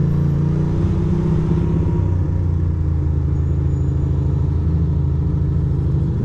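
The air-cooled V-twin engine of a 2006 Ducati Monster 620 running steadily while the bike is ridden through city traffic, heard from on board.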